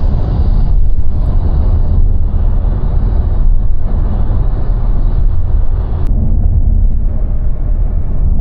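Loud, steady low rumbling noise with no clear pitch, its level fluctuating roughly throughout.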